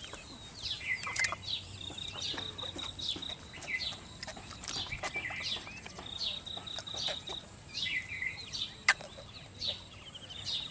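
Birds chirping and calling in short, quickly repeated notes, with a few brief buzzy trills. One sharp click comes about nine seconds in.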